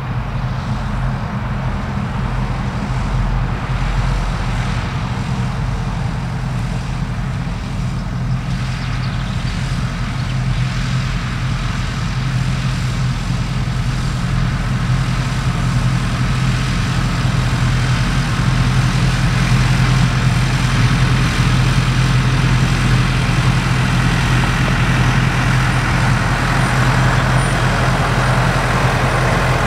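Farm tractor's diesel engine running steadily under load, a constant low hum that grows somewhat louder over the second half.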